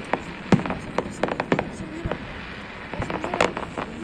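Fireworks exploding in a display: irregular sharp bangs and crackles, with a loud bang about half a second in, a quick run of cracks after a second, and another dense cluster near the end.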